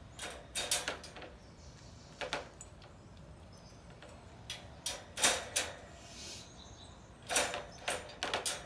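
Metal wire dog crate door being unlatched, swung open and latched shut again, its latch and wire panels clinking and rattling in several short bursts.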